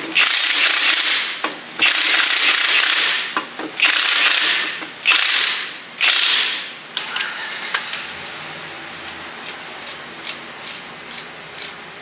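Cordless power tool running in short bursts of about a second each, about five times, as it tightens the pinion nut on a Dana 30 front axle toward pinion preload. After about seven seconds it stops, leaving quieter scattered clicks of handling.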